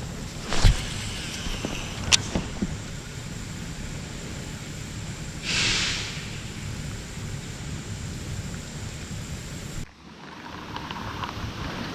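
Wind rumbling on the microphone, with a few light knocks in the first couple of seconds and a short hiss about halfway through; the rumble drops off suddenly near the end.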